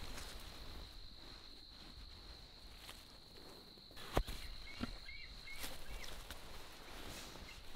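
A rubber boot being pulled on, then footsteps and rustling in leafy undergrowth, with two sharp knocks about four seconds in. A steady high-pitched tone runs underneath.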